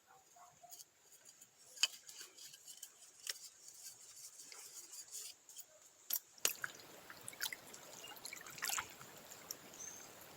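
Faint scattered clicks and small handling knocks. From about six seconds in, a soft trickle of liquid runs under them.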